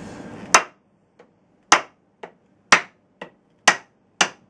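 Hammer striking a punch, eight sharp knocks about two a second, loud blows alternating with lighter ones, each with a short ring. The punch is splitting under the blows.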